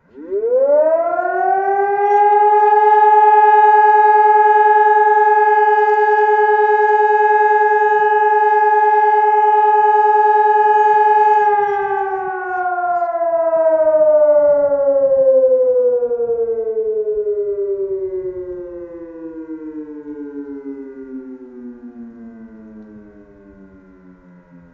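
Hörmann ECN 600 motor siren sounding the short test signal: it spins up to pitch in about a second, holds one steady tone for about eleven seconds, then winds down with slowly falling pitch and fading level as the rotor coasts, still faintly sounding at the end.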